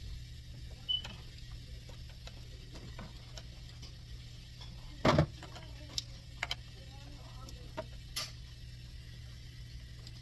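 Scattered light clicks and knocks of parts being handled during work on the car, over a steady low hum. A louder knock comes about five seconds in and another shortly past eight seconds.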